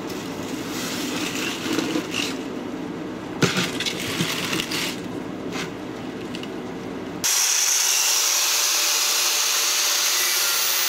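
Scraping and clinking of copper winding wire being worked out of an old electric motor, with a sharp knock about three and a half seconds in. A little after seven seconds it switches abruptly to an angle grinder cutting through the motor's copper coils, a steady high hiss.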